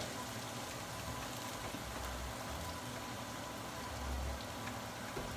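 Leeks frying in a large pan on a gas burner, a steady soft sizzle.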